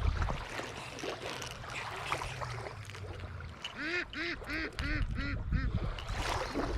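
Waterfowl calling: a quick run of about seven short, arched calls in under two seconds, starting near the middle.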